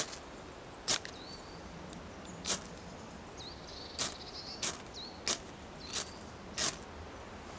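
Ferro rod struck about eight times, each stroke a short, sharp rasp, coming quicker in the second half, throwing sparks onto a clump of moss tinder.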